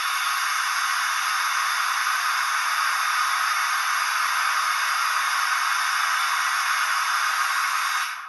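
Steady steam hiss played by a Hornby Black Five model steam locomotive's sound decoder while the engine stands still; the hiss cuts out briefly near the end and comes back.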